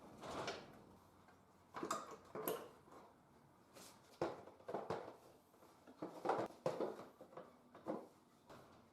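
Irregular clatter and knocks of hard objects being handled and set down, about a dozen in a few seconds, in a small room.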